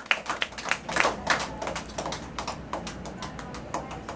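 A small group of children and adults clapping, with one close clapper loudest. The claps are heaviest in the first second or so, then thin out into lighter, quicker patters.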